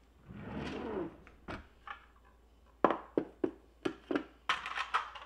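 A kitchen drawer sliding open on its runners during the first second, then a run of sharp plastic clicks and clatters from about 3 s in as small items are handled among the plastic organiser trays inside it.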